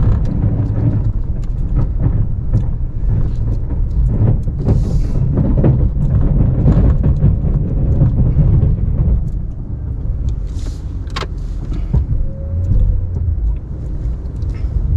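Ram 1500 Classic pickup truck running with a low, steady rumble, with a few sharp scrapes and knocks over it.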